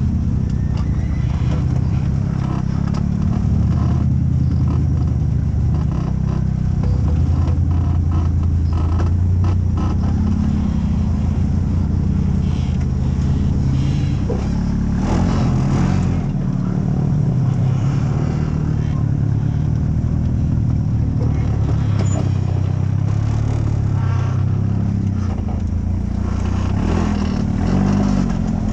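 Rock crawler buggy's engine running at low speed under load, its pitch rising and falling as the throttle is worked, with a few knocks and scrapes around the middle. The pitch swings up and down most plainly near the end.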